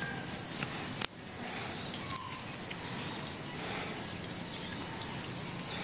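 Steady high-pitched drone of insects, with a single sharp click about a second in and a few light clicks around two seconds in.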